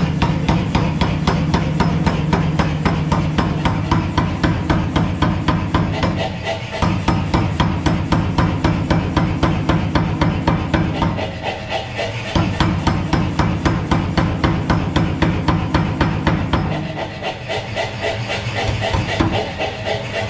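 Anyang ST75 self-contained air power hammer running and striking hot steel bar in rapid, evenly spaced blows over the steady hum of its motor, easing off briefly three times.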